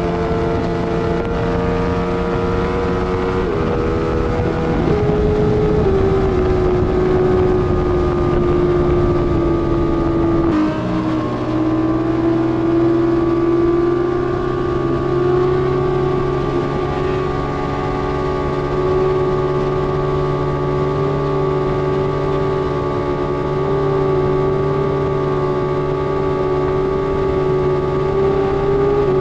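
Steady motor drone, a pitched hum whose pitch drifts slowly, with a sudden drop to a lower pitch about ten seconds in.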